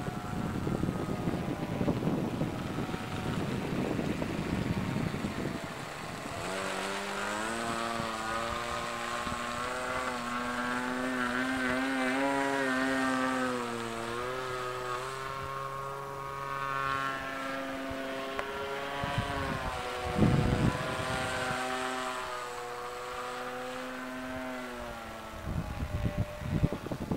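Radio-controlled model autogyro in flight: the engine and propeller give a steady buzz whose pitch wavers up and down as the model flies past. Wind rumbles on the microphone for the first few seconds, and again in short gusts later on.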